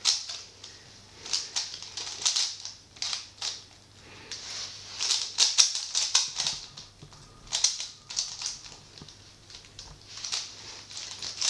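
A stickerless plastic 3x3 Rubik's cube being turned quickly by hand: runs of rapid clicking and clacking as the layers snap round, with short pauses between the runs.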